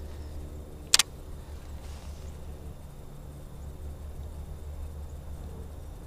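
A single sharp click about a second in, over a steady low rumble.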